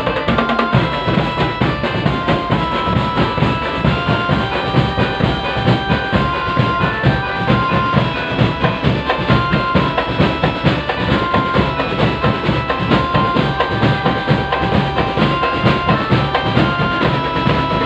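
Drum band music: fast, steady drumming on bass and snare drums, with a melody of short held notes played over it.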